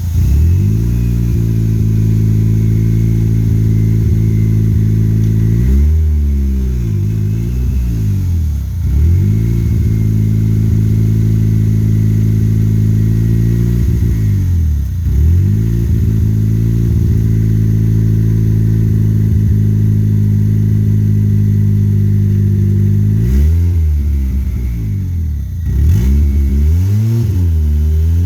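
Turbocharged Honda Civic D16Z6 1.6-litre four-cylinder engine running hard on the road, heard as a low drone. Its revs hold steady for long stretches, then dip and climb again several times at gear changes.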